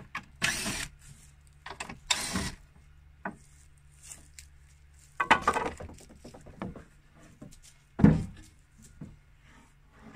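Plywood sheets being worked with a cordless impact driver on a wooden deck: a few short bursts from the driver, then a loud wooden knock about eight seconds in as a sheet is moved. A steady low hum runs underneath.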